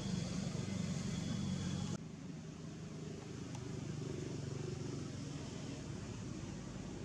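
Steady low outdoor background rumble that steps down in level about two seconds in.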